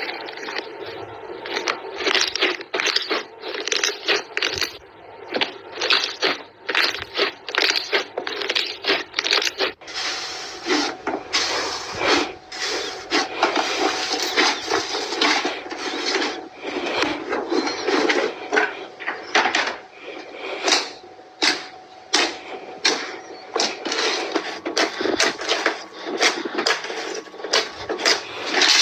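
Hands squeezing, stretching and pressing slime, making rapid wet crackling and popping clicks, several a second, that become denser and more continuous about a third of the way in.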